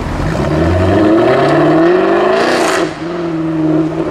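Jaguar F-Type R's supercharged V8 revving up, its pitch climbing for about two and a half seconds, then dropping suddenly when the throttle is lifted and settling into a steady lower note.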